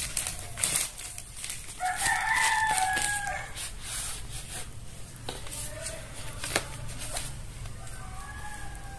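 A long bird call about two seconds in, the loudest sound, with fainter calls near the middle and end, over the clicking and rustling of a cardboard palette box and bubble wrap being handled.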